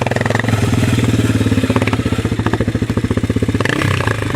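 Single-cylinder ATV engine running close by with a steady rapid firing beat; the engine note changes near the end.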